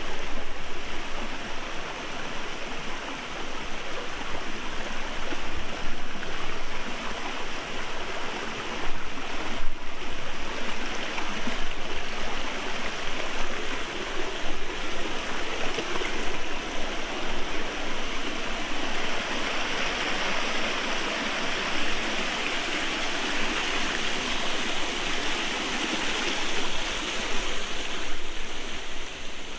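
Small forest stream spilling over a low rocky cascade: a steady rush of running water.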